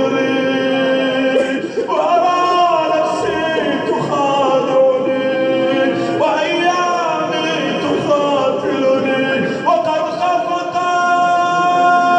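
Unaccompanied male vocal chanting: long held notes that waver and slide between pitches, with a new phrase starting every three to four seconds.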